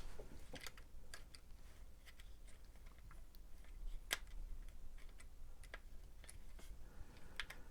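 Faint, scattered light clicks and taps of the plastic joystick housing and its small parts being handled as the joystick is taken apart. The sharpest click comes about four seconds in.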